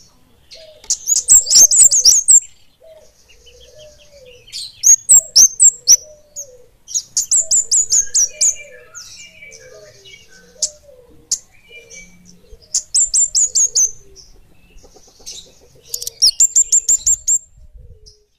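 Flowerpecker (kemade) singing in about five bursts of rapid, very high, tightly packed notes, each a second or so long. A fainter, lower wavering note repeats about once a second underneath.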